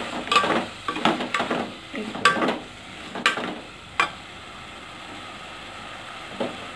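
A steel spoon stirs and scrapes thick chicken curry in an aluminium pot, clinking sharply against the pot several times. The stirring stops about four seconds in, leaving a steady faint sizzle from the curry cooking on the stove.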